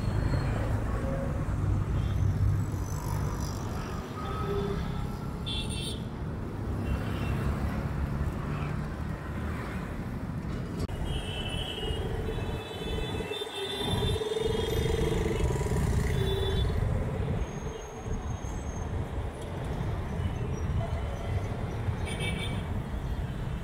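City road traffic: engines and tyres running steadily, with vehicle horns tooting several times around the middle.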